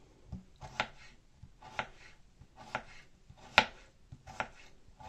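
Kitchen knife slicing a cucumber into thick pieces on a wooden cutting board: about six cuts, roughly one a second, each ending in a knock of the blade on the board.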